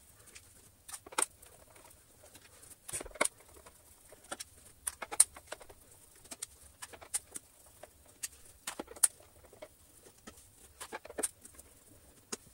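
Screwdriver undoing screws from the plastic cyclone assembly of a Dyson DC33 vacuum cleaner: irregular small clicks and scrapes of the tip and screws against the plastic.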